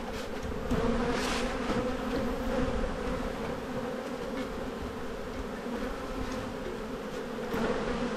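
Honeybees buzzing in the air around an open hive: a steady, even hum.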